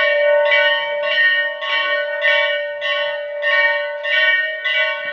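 Temple bell rung over and over, a strike about every half second or so, its tone ringing on between strokes.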